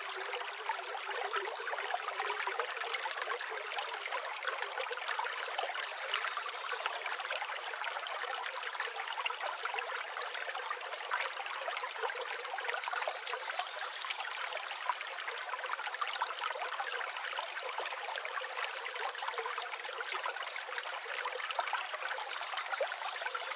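Forest ambience of a stream trickling steadily, with a few faint high bird calls now and then.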